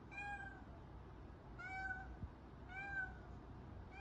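A cat meowing: four short, faint meows about a second apart.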